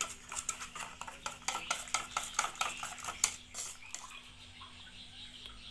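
A spoon stirring thin batter in a metal cooking pot, with rapid clicking and scraping against the pot's sides. The clicking stops about three and a half seconds in as the spoon is lifted out and the batter drips back.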